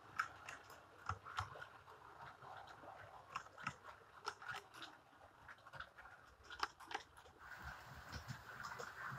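HO-scale model railway coaches rolling along sectional track, their wheels clicking irregularly over the rail joints, over a faint steady whine.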